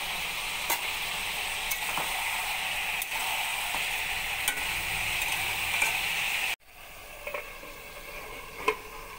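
Chicken pieces with onions and turmeric frying in oil in a steel pot, a steady sizzle with sharp clicks of a spoon striking the metal as it is stirred. About two-thirds of the way in the sizzle cuts off abruptly, and a single sharp metallic clink follows near the end as the metal lid goes on.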